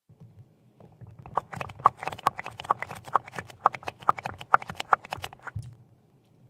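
A quick run of sharp taps on a hard object, about five a second, starting about a second in and trailing off near the end.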